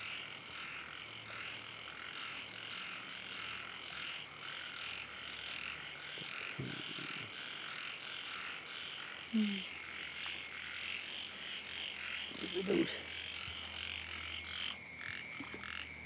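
Frogs calling at night in a dense, steady chorus of rapid pulsing calls. A few short, louder low sounds stand out about midway and again about three-quarters through.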